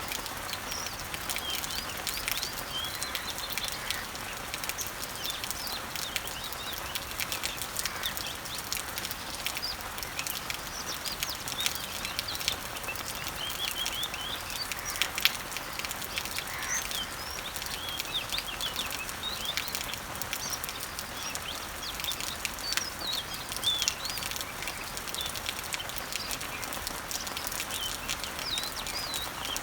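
Rain falling on garden leaves and trees, a steady hiss dotted with many sharp drop ticks, with a few louder drips. Birds chirp throughout in short calls that rise and fall in pitch.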